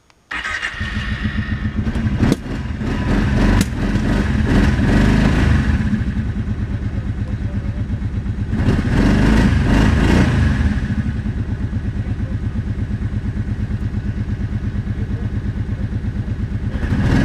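Four-wheeler (ATV) engine starting up, then idling with a fast, even beat, revved up briefly a few times.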